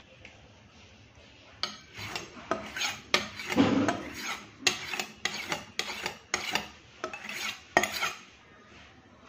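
Kitchen knife being sharpened on a flat sharpening stone: a run of about a dozen quick scraping strokes of steel on stone, roughly two a second. The strokes start about a second and a half in and stop near the end.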